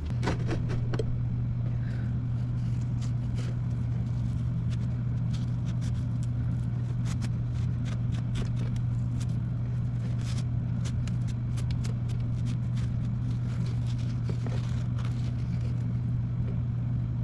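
Electric buffing wheel running with a steady hum, with scattered brief scratchy clicks as a rusty metal lathe part is worked against the wheel.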